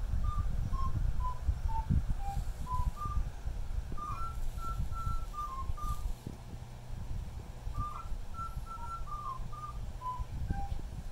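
A tune whistled in short, stepping notes. Underneath, a low irregular rumble of handling noise from the phone moving close over the puppy.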